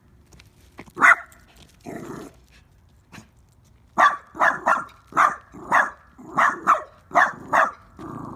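A dog barking: a single bark about a second in, then from about four seconds in a run of about nine quick barks, roughly two a second.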